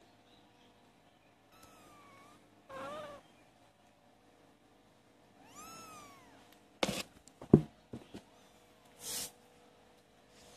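29-day-old kittens mewing a few times in thin, high calls, the clearest one rising and then falling about two-thirds of the way in. Right after it comes a quick cluster of sharp knocks and bumps, the loudest sound here, and a short rushing noise a little later.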